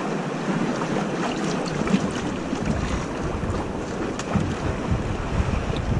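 Wind buffeting the microphone over sea water washing around shoreline rocks, the low rumble of the wind building from about two seconds in.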